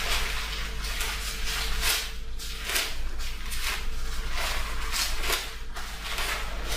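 Irregular rustling and handling noises, a string of short scuffs and brushes, over a steady low electrical hum.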